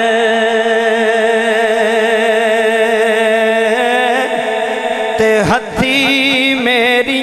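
A man singing a line of Punjabi devotional verse, holding one long drawn-out note with a wavering vibrato. About four seconds in the pitch shifts, and after a brief break near five and a half seconds the singing goes on in quick ornamented turns.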